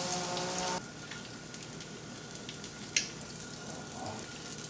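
Breaded chicken cutlet sizzling in hot oil in a frying pan as it is turned over with metal tongs, with one sharp click of the tongs against the pan about three seconds in. A steady pitched drone cuts off under a second in.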